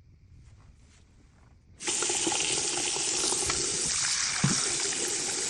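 Faint handling noise, then a faucet turned on just under two seconds in, water running steadily into the sink, with one small knock partway through.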